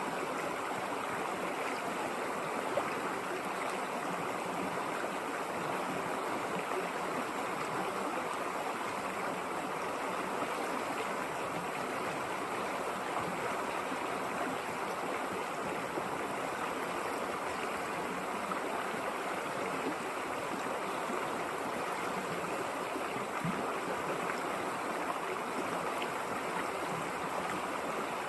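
River water rushing and babbling over rocks, a steady even flow without a break.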